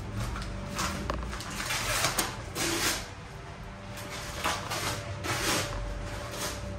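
Paper rustling and crinkling in irregular bursts as white paper is pulled out of a gift bag.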